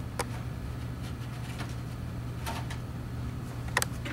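A few faint clicks and a short rustle as gloved hands handle plastic items in a catheterization kit, picking up plastic forceps, over a steady low hum.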